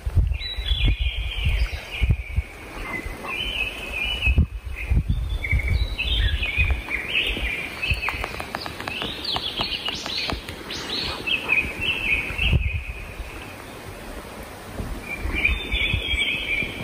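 Songbirds singing in quick, chirping phrases, busiest through the middle and again near the end, over an uneven low rumble.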